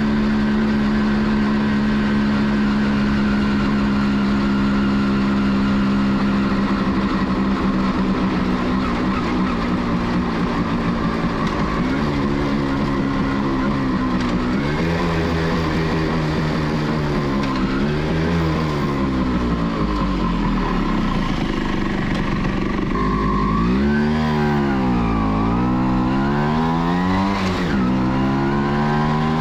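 Two-stroke engine of a 1989 Kawasaki B1 motorcycle under way. It holds a steady pitch at cruising speed for about the first twelve seconds, then rises and falls in pitch several times as the throttle opens and closes. About two-thirds of the way in it drops deeply and climbs back.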